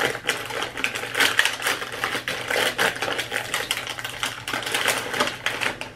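A plastic dog-treat bag crinkling as it is handled, a rapid run of irregular crackles.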